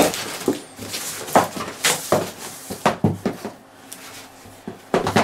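Cardboard boxes being handled and shifted inside a larger shipping carton: an irregular string of knocks, scrapes and rustles, with a quieter pause a little past the middle.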